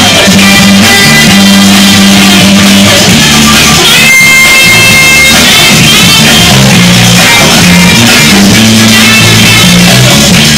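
Loud music with a bass line stepping between notes, the backing track for a breaking battle; a high note is held for about a second near the middle.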